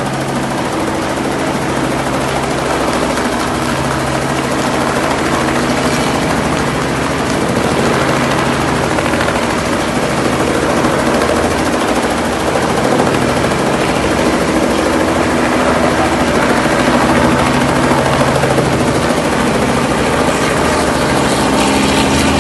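Light helicopter flying low overhead, its rotor and engine running steadily.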